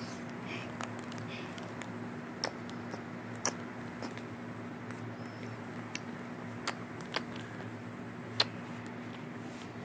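Scattered light clicks and taps from objects being handled, about six in all, the loudest about eight seconds in, over a steady low hum.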